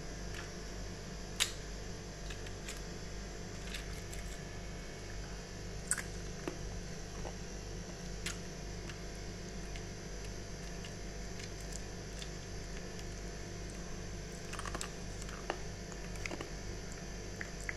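A few scattered sharp clicks from a plastic ice cube tray being handled over a steel sink, the loudest about a second and a half in and again about six seconds in, over a steady low hum.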